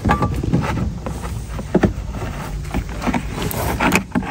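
Scattered knocks and rustles of hands working inside a plastic rear trim panel, fastening cable ties around a wiring harness, over a steady low rumble.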